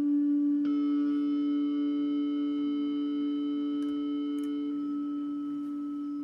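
Synthetic guitar feedback drone from a Helix feedback simulation running into a Digitech FreqOut pedal. One steady pitch is held and slowly fades, and a second, higher feedback tone swells in about a second in and drops away about five seconds in.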